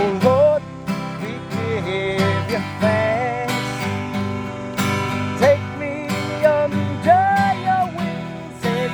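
Country-style song: strummed acoustic guitar with a gliding melody line over it.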